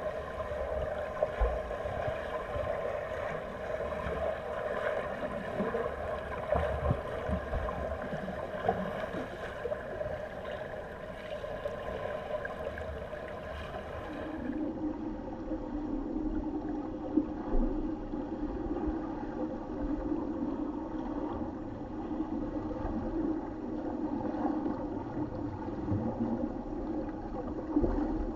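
Muffled underwater pool noise picked up by a camera in its waterproof housing: a steady churning of water and bubbles from swimmers' strokes, with occasional dull knocks. About halfway through the sound changes abruptly, becoming duller and lower.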